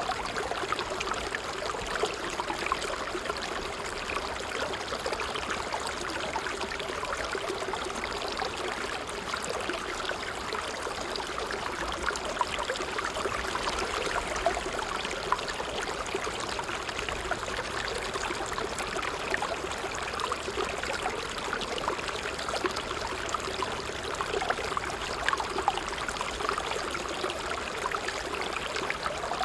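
Water trickling steadily, a continuous light babble with small splashes and drips throughout.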